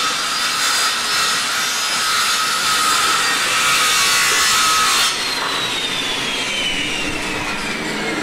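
Hand-held electric saw cutting through a yellowfin tuna carcass, running steadily for about five seconds, then switched off, its motor whining down in pitch as it coasts to a stop.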